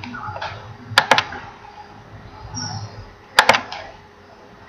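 Sharp clicks in two close pairs, one about a second in and one past the three-second mark, over a faint murmur of voices.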